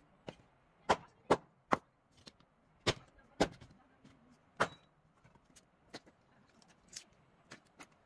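A hatchet splitting firewood: six sharp strikes of steel into wood in the first five seconds, then only fainter knocks and clicks of wood.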